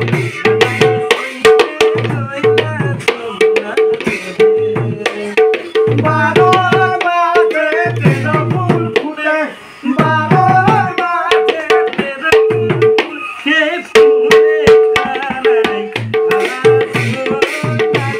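A khol drum played by hand in a steady devotional rhythm, ringing treble strokes alternating with deep bass strokes. Small brass hand cymbals clash along with it, and a man's voice sings a chant over the playing through the middle.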